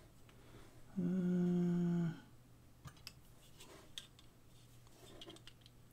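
A person hums a single steady 'hmm' for about a second, then a few faint clicks follow as small parts and tools are handled.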